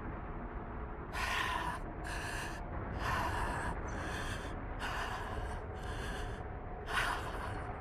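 A man panting hard in heavy, voiced breaths, about seven of them roughly a second apart, over a steady low rumble.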